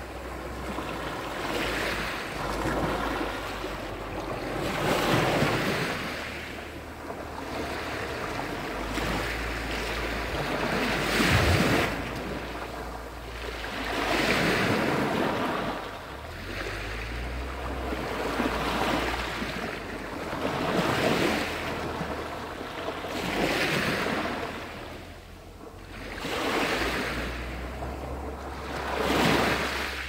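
Sea surf washing onto a pebble beach, a hiss that swells and fades every two to three seconds as each wave comes in and draws back.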